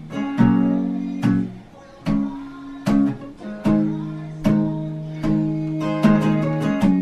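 Acoustic guitar being strummed: one chord struck about every second, each left to ring out before the next stroke.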